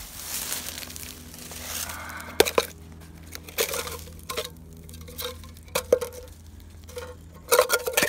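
Dry leaf litter rustling and crunching as it is pushed around, then a series of sharp clinks and knocks of hard objects with a short ring, several close together near the end.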